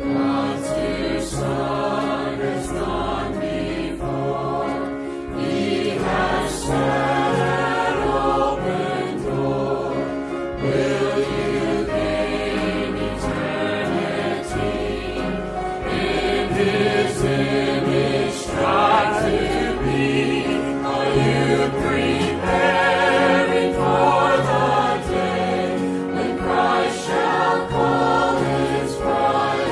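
Mixed church choir of men's and women's voices singing a hymn together, with sustained wavering notes.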